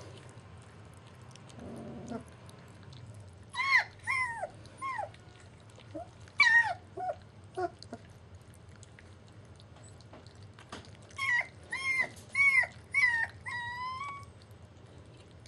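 German Shepherd puppies whining and whimpering in short high-pitched calls that drop in pitch. They come in bursts: four about four seconds in, a few more around six to seven seconds, and five near the end, the last one drawn out and slightly rising.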